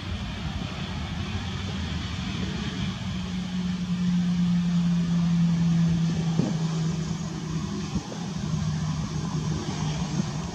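Airbus A320's jet engines at taxi idle as the airliner rolls past: a steady hum over a hiss, with a low tone that dips slightly in pitch a few seconds in.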